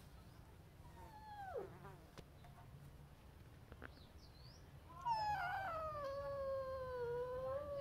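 Tabby cat meowing: a short meow that falls in pitch about a second in, then a long, drawn-out meow starting about five seconds in, which is the loudest sound.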